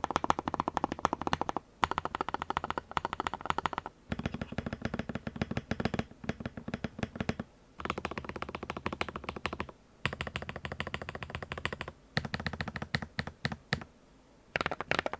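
Fast typing on an Akko 5075S mechanical keyboard with Aflion Blue Sky switches: rapid, dense keystroke clacks in runs of a few seconds broken by short pauses.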